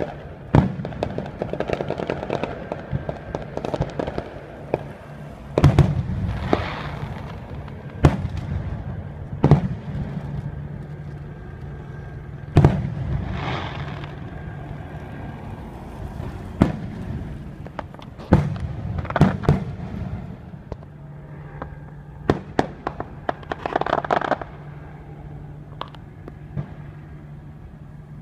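Aerial fireworks display: a dozen or more sharp booms of shells bursting at irregular intervals, several followed by a longer crackling hiss.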